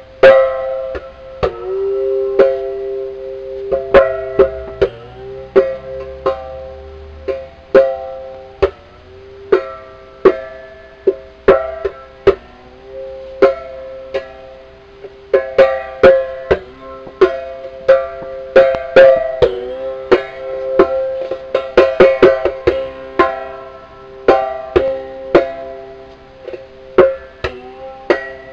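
Cantar, a stringed percussion instrument with a metal can resonator, struck with a stick in a loose, improvised rhythm. Each sharp strike rings on as a twangy pitched tone, and the pitch shifts between a few notes, with a quick flurry of strikes about two-thirds of the way in.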